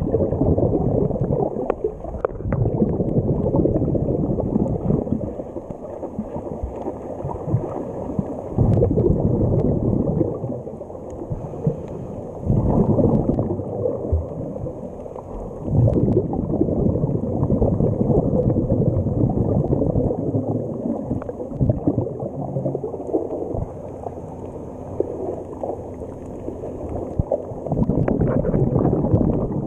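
Scuba breathing heard underwater: the regulator's exhaled bubbles swell into muffled gurgling rushes every few seconds.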